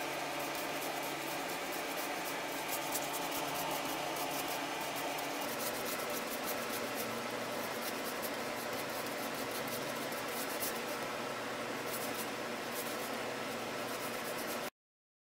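Paintbrush scrubbing paint onto bare plywood: an uneven, scratchy rubbing over a steady background hum, cutting off abruptly near the end.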